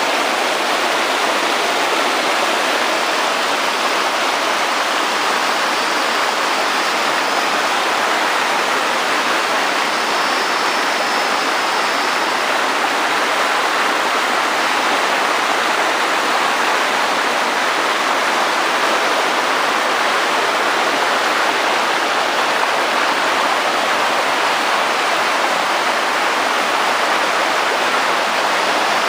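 Rushing water, a steady, unbroken rush like a waterfall's, with no change in level throughout.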